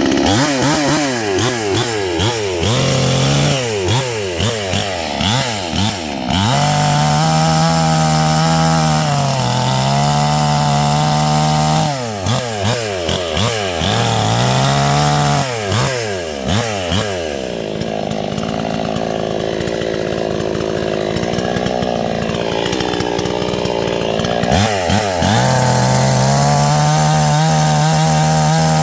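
Two-stroke chainsaw revved up and down repeatedly and held at high revs in between. Past the middle, for about seven seconds, the pitch sinks and wavers as the chain is loaded cutting into wood.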